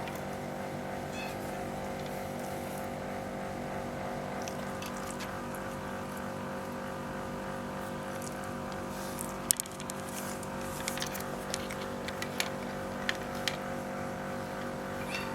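A steady machine-like hum throughout, with a scatter of sharp clicks and taps in the second half, the loudest of them about halfway through.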